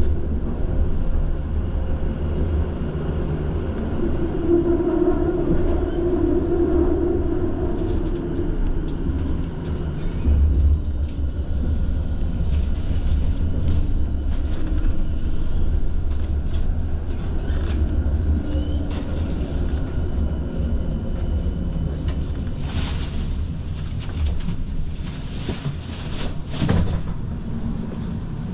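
Tram running along its rails, heard from inside the car: a steady low rumble of wheels and motors, with a brief hum a few seconds in and rattles and clicks over the track that come thicker near the end.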